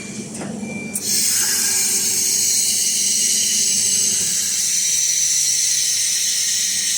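Handheld fibre laser welder switching on about a second in with a sudden, steady, loud hiss, typical of the shielding-gas flow and welding at the torch, over a low machine hum.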